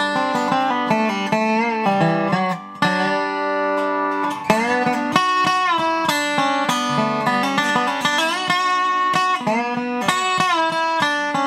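R.Q. Jones spider-bridge resonator guitar (dobro), freshly overhauled with a new spider, played lap-style with fingerpicks and a steel bar: plucked notes with pitch glides from the slide. The player calls its tone nice and growly.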